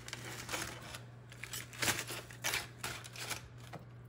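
A carving knife sawing through the crusty roast bison rib roast, in a series of short, irregular cutting strokes, with the aluminium foil beneath crinkling.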